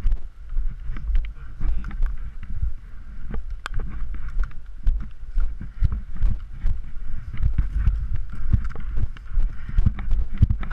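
Footsteps and gear rustling of an airsoft player on the move, heavy on the microphone as uneven low thumps, with scattered sharp clicks.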